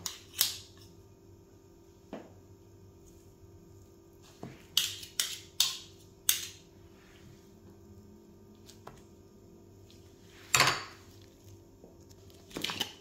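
Kitchen handling sounds: scattered sharp clinks and taps of utensils and containers, a quick run of them in the middle and the loudest one about ten seconds in, over a faint steady hum.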